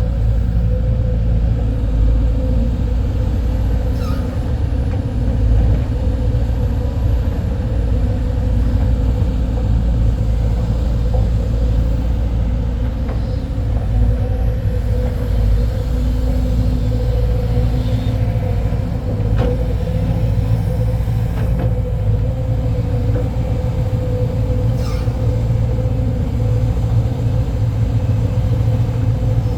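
Diesel hydraulic excavator working: a steady, loud engine rumble with a constant whine, and a few faint knocks.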